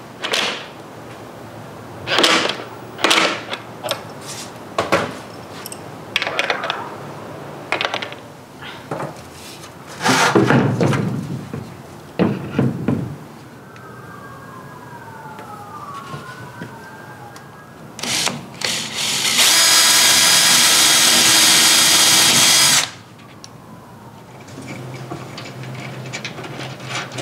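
Metal shelf brackets and hardware knocking and clicking as they are handled and fitted. After the middle comes a power drill running steadily for about three seconds, the loudest sound, then it stops abruptly.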